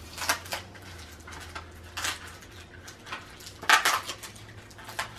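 A small cardboard product box with a charger inside being opened and handled: scrapes, rustles and a few sharp clicks of packaging, the loudest clatter about three and a half seconds in.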